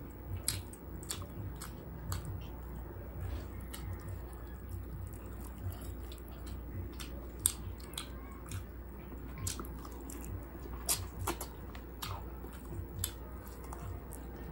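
Close-miked chewing and wet mouth smacks while eating roast chicken by hand, with short scattered clicks throughout.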